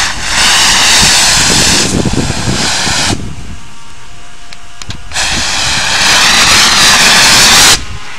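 Portable Tri-Max 3 compressed air foam unit discharging foam from its nozzle in two loud hissing blasts: the first cuts off about three seconds in, and the second starts about five seconds in and stops suddenly near the end.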